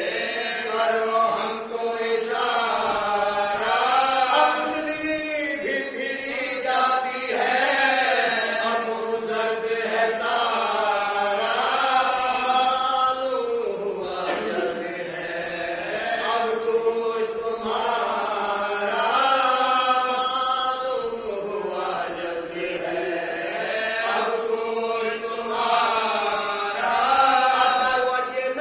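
A group of men chanting a marsiya, an Urdu mourning elegy, unaccompanied: an older lead reciter with younger men singing along in unison. The melody moves in long held notes that slide slowly up and down.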